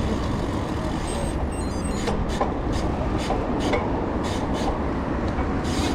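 Steady rumble of wind and road noise on the camera while riding a road bike, with scattered short clicks and ticks.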